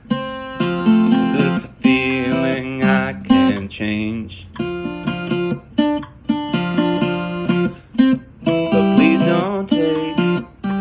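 Acoustic guitar playing a melody of plucked notes over strummed chords, in phrases broken by short pauses, with some wavering, bent high notes.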